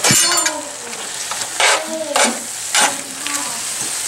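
Metal spoon stirring and scraping through shredded chicken and diced tomatoes in a cast-iron skillet, over a steady sizzle from the sauce cooking. A few sharp scrapes stand out, one right at the start and others around the middle.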